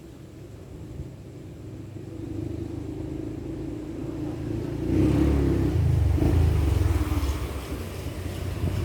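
A motor vehicle going by: a low engine rumble that builds, is loudest about five to eight seconds in, then eases off.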